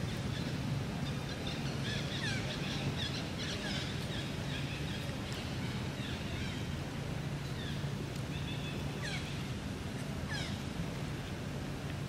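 Outdoor ambience: many short, high chirps, each falling quickly in pitch, come and go throughout, over a steady low hum and background noise.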